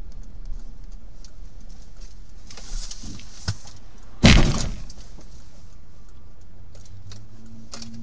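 Steady road rumble inside a moving car, with one loud bang about four seconds in as a motorcycle passes very close alongside the car.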